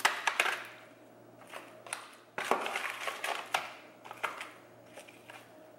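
Wooden spatula tossing shrimp and potatoes in butter sauce in a disposable aluminum foil pan: irregular scrapes, rustles and sharp clicks of the foil and shells, in bursts with quieter gaps.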